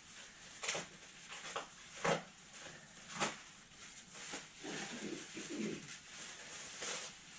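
Plastic bubble wrap rustling and crackling in short bursts as it is pulled and peeled off a 3D printer. Around five seconds in there is a brief low, wavering cooing-like sound.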